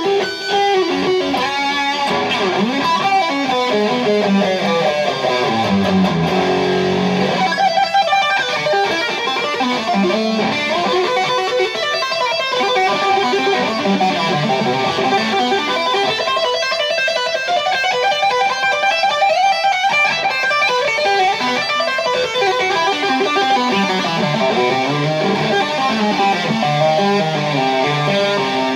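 Electric guitar played in fast runs with two-handed tapping, the notes sweeping up and down in pitch.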